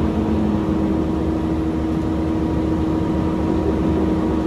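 Caterpillar hydraulic excavator's diesel engine running steadily, with a steady tone held over the low rumble.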